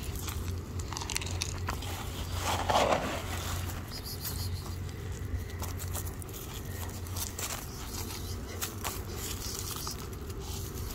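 Dry cat kibble clicking and crackling as it is handled in a bowl and scattered onto dirt, with a louder noise about two and a half seconds in.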